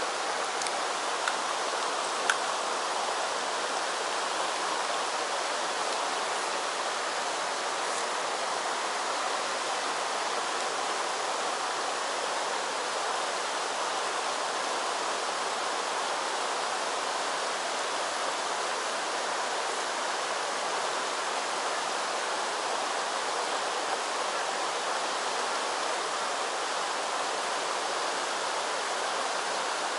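Shallow mountain stream running steadily over cobbles and stones, an even rushing babble. There is a single sharp click about two seconds in.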